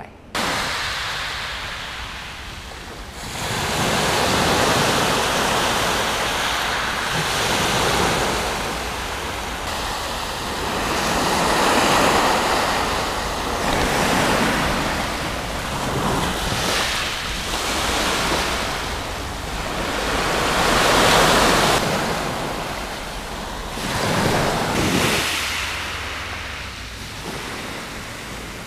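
Small waves breaking and washing up a shingle beach, the surf swelling and fading every few seconds, with wind on the microphone.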